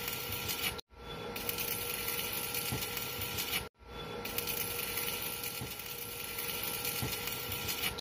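Electric arc welding on a steel angle-iron frame: a steady hiss and crackle with a faint machine hum under it, cutting out for a split second twice.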